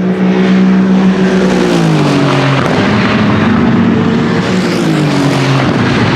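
LMGT3 race car engine passing at speed, its pitch steady, then dropping, climbing again, and dropping once more near the end.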